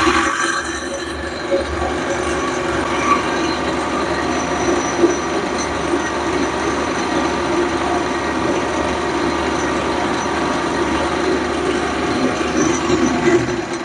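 Connecting-rod bushing boring machine running steadily as its cutter takes a second, clean-up pass through the small-end bushing of an S44 engine connecting rod, needed because the bushing was left with a lot of stock and the cutter deflected on the first pass. It dies away at the very end.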